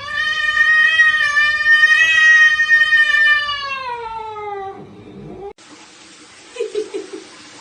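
Cat giving one long drawn-out yowl lasting about five seconds; it rises in pitch at the start, holds, then slides down at the end. After it cuts off there is a steady hiss, with a brief quick stutter of low sounds about seven seconds in.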